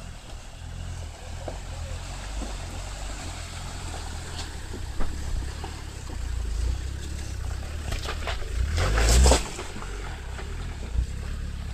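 Land Rover Discovery II wading through a shallow river ford: a steady low engine rumble with water sloshing around the wheels. A louder rush of noise comes about eight to nine seconds in.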